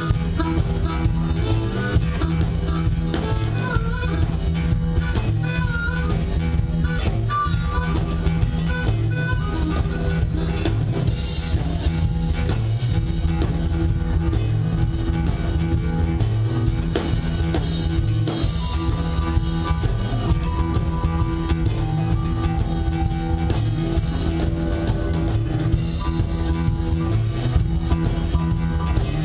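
Live rock-blues band playing an instrumental stretch: electric guitar, bass and drum kit, with a harmonica wailing a bending melody over the band in the first part.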